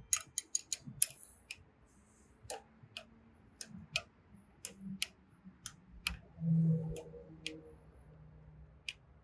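Hand tools tightening the bolts on a log splitter's valve-handle linkage: scattered sharp clicks, a quick run of about six in the first second and then single clicks every half second or so. A short, louder low rumble comes about six and a half seconds in.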